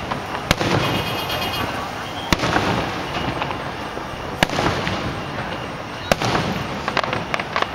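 Aerial firework shells bursting in the sky, a sharp bang every one to two seconds, five or so in all.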